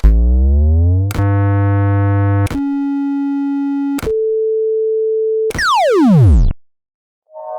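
Synthesized electronic tones: a glide rising through the first second, then a run of steady buzzy and pure tones changing in steps, ending in a fast downward sweep that cuts off.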